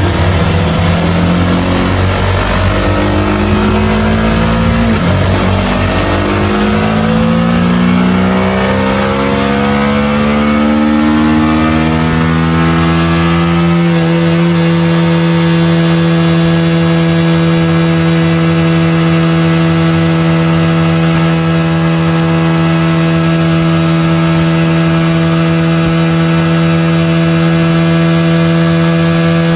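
Motorcycle engine run at full throttle on a test stand. Its pitch climbs steadily for about fourteen seconds, then holds steady at high revs for the rest of the run.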